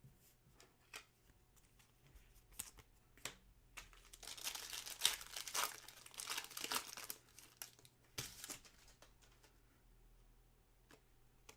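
Plastic packaging crinkling and rustling as trading cards are handled, with scattered light clicks. The crinkling is densest from about four to seven and a half seconds in.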